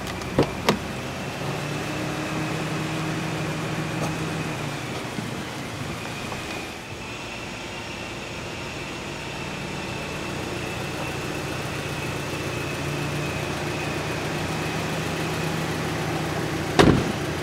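The 2010 Mazda MX-5's door latch clicks twice as the inside handle is pulled, and near the end the door is shut with a loud thud. A steady hum runs underneath throughout.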